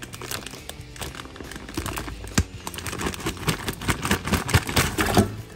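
Raw beef pieces tipped from a plastic bag into a metal pot. The bag crinkles and the meat lands in a run of soft thuds and clicks, busiest in the last two seconds, and the sound stops suddenly near the end.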